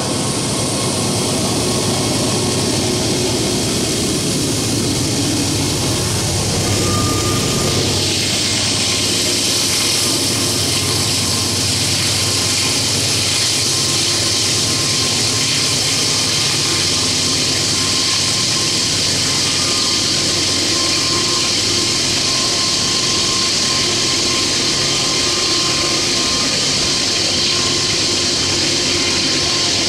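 Norfolk Southern GE AC44C6M diesel locomotive working hard as it crawls upgrade with a heavy coal train, then loaded coal hoppers rolling slowly past. The sound is loud and steady throughout, and turns into a brighter rushing noise about eight seconds in as the train comes by close.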